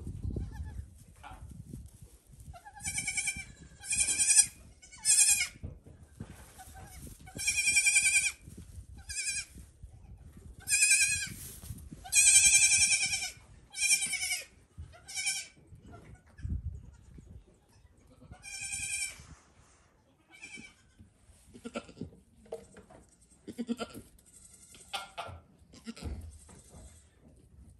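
Baby goat kids bleating: about ten high, quavering bleats, some short and some drawn out, in quick succession, then fainter, lower calls near the end.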